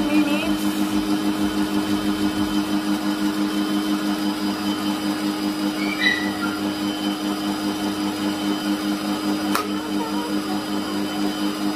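Electric stand mixer with twin beaters whipping egg whites and caster sugar for meringue in a glass bowl: a steady motor hum with a regular pulsing.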